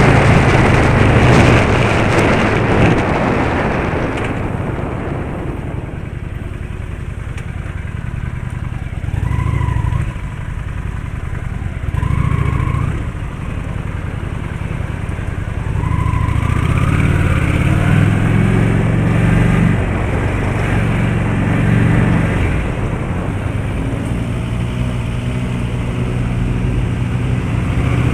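Road traffic: motor vehicle engines running with road noise, the engine hum shifting pitch in steps. A loud rush of noise fills the first four seconds and then dies down. A few short rising tones come about 9, 12 and 16 seconds in.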